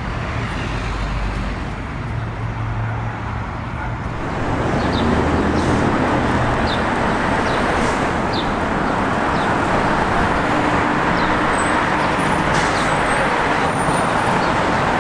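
Street traffic passing, then, about four and a half seconds in, a louder steady noise of a city bus's engine and road noise as the bus comes up to the camera.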